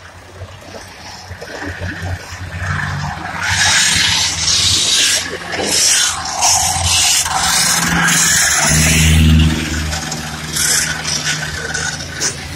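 Stock cars running past on a wet oval track: engines and tyre hiss swell as the cars pass close, loudest about four seconds and nine seconds in.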